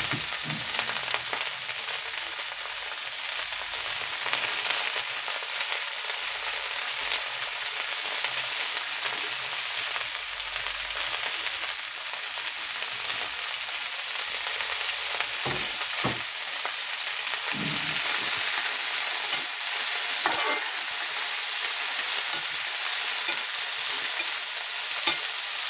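Chopped vegetables (broccoli, carrots, green beans) and onion sizzling steadily in hot oil in a metal karai. There are a few spatula knocks and scrapes in the second half as the vegetables are stirred.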